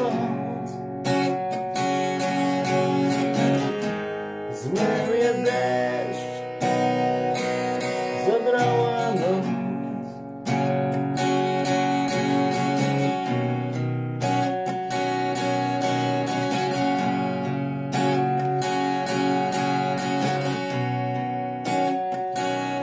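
Acoustic guitar strummed steadily, chords ringing on in an instrumental passage between sung verses.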